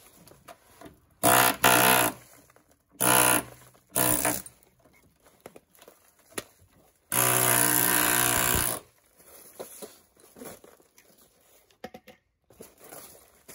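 A power tool is run in four short bursts and then in one longer run of nearly two seconds, each at a steady, unchanging pitch. Small clicks and handling noises come between the runs.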